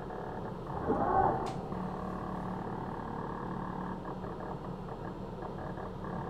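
Savox SC-1257TG coreless digital servo steering the front wheels of an RC car, with a steady hum and a brief louder whirr about a second in, followed by a sharp click.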